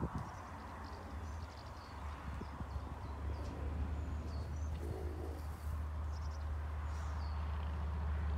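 Small birds chirping, short quick notes repeated every second or so, over a steady low hum that grows louder toward the end.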